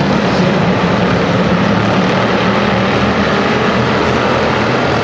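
Engines of a pack of hobby stock race cars running hard at racing speed, a loud, steady drone of several engines together.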